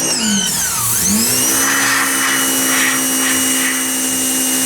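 A steady electric motor drone. Its pitch sags right at the start, cuts out briefly, then climbs back to its steady note about a second in.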